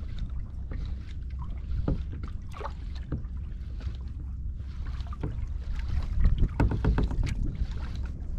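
Wind rumbling on the microphone and small waves lapping against a kayak's hull, with scattered light knocks and splashes; they come thicker and louder about six seconds in.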